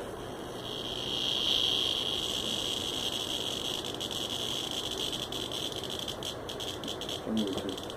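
A cicada's distress buzz as a cat attacks it: a steady high-pitched drone that swells about a second in, then weakens and breaks into short stutters in the last couple of seconds.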